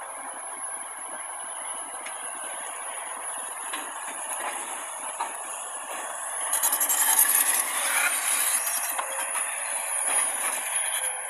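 Heavy construction machinery working: a continuous mechanical noise with hiss and scattered clanks. It grows louder for a few seconds starting about six seconds in.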